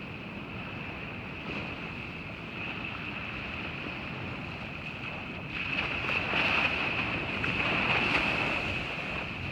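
Ocean surf and wind on the microphone, with a wave swelling louder a little past halfway and easing near the end. A steady high-pitched whine runs underneath throughout.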